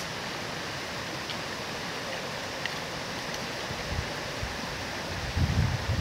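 Steady rushing of a shallow river flowing over rocks. Low rumbling wind buffets the microphone from about five seconds in.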